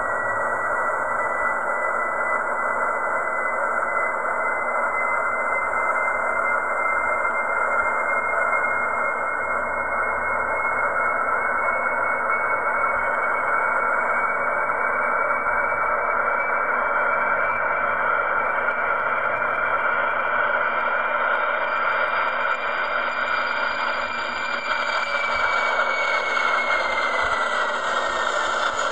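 Boeing 747 freighter's four jet engines at takeoff thrust: a steady roar with a high whine that climbs slowly in pitch, then slides down near the end as the jet lifts off and climbs away.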